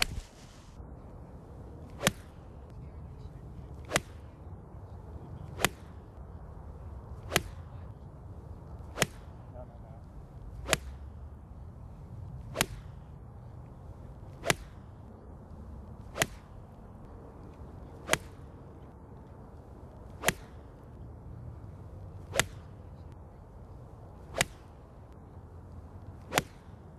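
Golf iron striking the ball off fairway turf, about fifteen sharp strikes in a row, one roughly every two seconds. Each strike is ball-first contact, with the divot taken in front of the ball.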